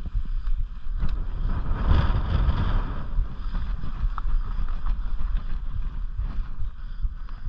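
Mountain bike rolling over a dirt and rock trail: wind buffeting the microphone over a steady tyre rumble, with many small rattles and clicks from the bike. It swells louder for a second or so about two seconds in.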